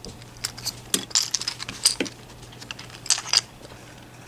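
Small metal parts clicking and clinking as handcuffs and a lock are handled, in several short irregular clusters with a jingly ring.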